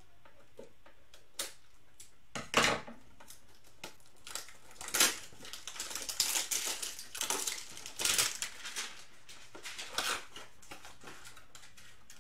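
Foil wrappers of Mosaic football card packs being torn open and crinkled by hand: one sharp crackle about two and a half seconds in, then a dense run of crinkling and rustling for several seconds.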